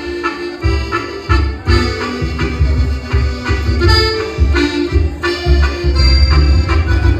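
Loud accordion-led Mexican dance music with a steady pounding bass beat, played for dancing.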